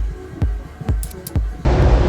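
Background music with a steady beat, a little over two thumps a second, that breaks into a louder, fuller section about one and a half seconds in.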